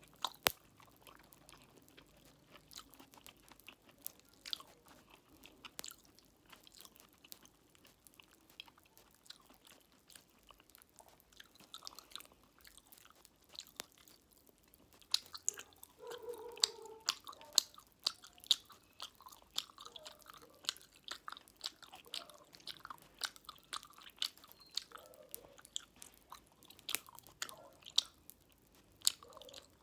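Close-up mouth sounds of chewing fruit jelly with popping candy: wet chewing with many sharp clicks and crackles, which come thicker in the second half.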